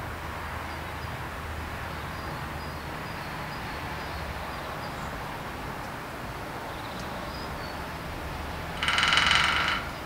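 Male great spotted woodpecker drumming once near the end, a rapid roll of about a second on the iron bracket of a pole, the metal ringing under the strokes. A steady low background noise runs under it.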